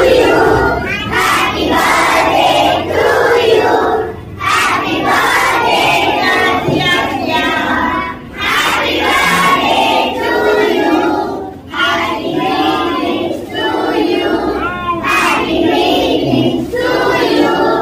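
A large group of young schoolchildren singing together in unison, loud, in sung lines of three to four seconds with short breaks between them.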